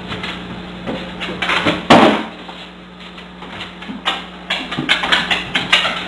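A single loud knock at the open fridge about two seconds in, then a large dog's claws clicking on a hard floor as it walks away.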